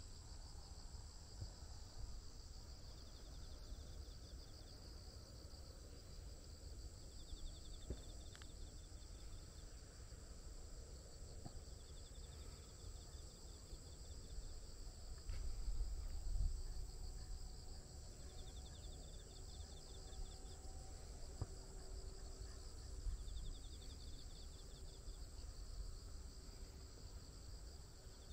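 Insects singing in a steady outdoor chorus, one of them repeating a short buzzing trill about every four to five seconds. A low rumble swells briefly about halfway through.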